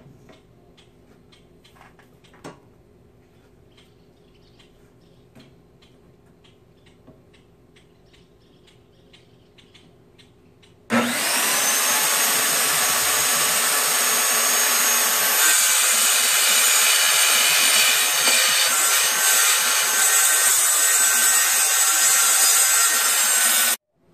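Handheld circular saw cutting through a wooden board. After about eleven seconds of faint clicks, the saw starts abruptly, runs steadily through the cut for about thirteen seconds, and cuts off suddenly.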